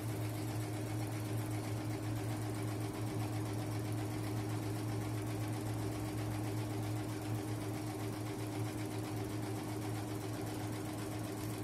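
Multi-head computerized embroidery machine running: a steady mechanical hum with a fast, even stitching rattle.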